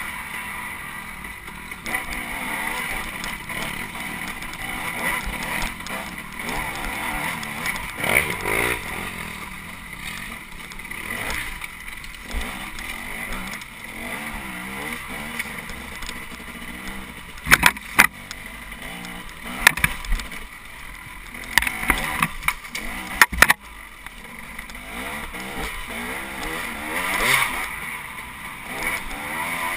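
Dirt bike engine running and revving up and down as it rides a wooded singletrack trail. Several sharp knocks come in a cluster about two-thirds of the way through.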